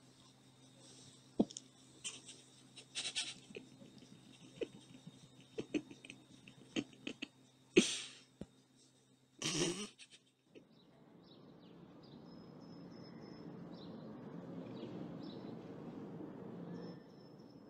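Two kittens scuffling on a fabric sofa: scattered soft thumps, rustles and sharp taps over a low steady hum, the loudest tap about eight seconds in. About ten and a half seconds in this gives way to a steady outdoor hiss with faint high chirps.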